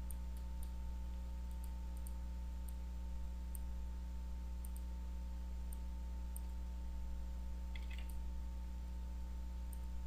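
Steady low electrical hum, with faint, scattered computer mouse clicks.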